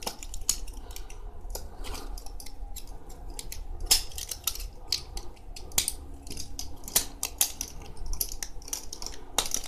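Thin galvanized iron track plates of a homemade RC tank track clicking and clinking against each other as they are fitted together and worked by hand. The light metal clicks come at an irregular rate, with a few sharper knocks, one about four seconds in and one near the end.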